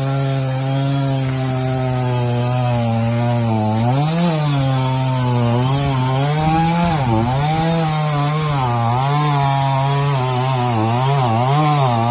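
Two-stroke chainsaw running at high revs and cutting through the trunk of a fallen tree. Its pitch holds steady at first, then from about four seconds in it dips and recovers again and again as the chain loads up in the wood.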